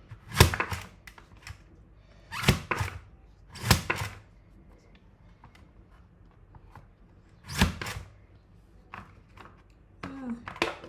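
A carrot being sliced on a Safe Slice mandoline. Each push of the pusher drives the carrot through the blades with a thunk: four loud ones at uneven spacing, with softer knocks between them.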